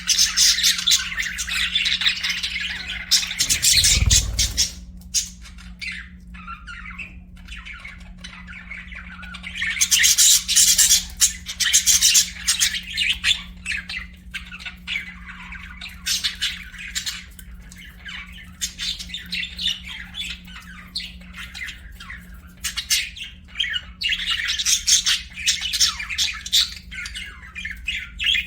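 Budgerigars chattering and warbling with rapid high chirps and squawks, in busy spells at the start, about ten seconds in and near the end, quieter between. A dull low thump about four seconds in, and a steady low hum underneath.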